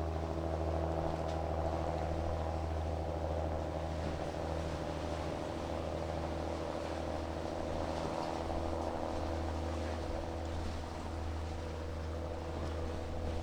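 Large cruise ship's engines droning steadily: a low, even hum with a constant pitch.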